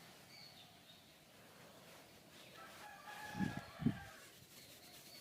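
A rooster crowing once, faint and some way off. Two short, dull thumps land during the crow, about half a second apart.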